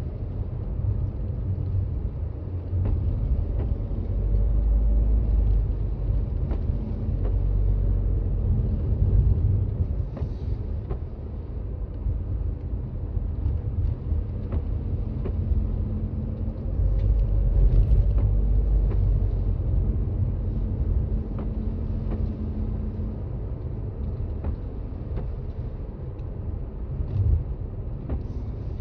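Toyota Raize Z 4WD driving on a snowy road, heard from inside the cabin: a steady low rumble of tyres and engine that swells twice and eases off again.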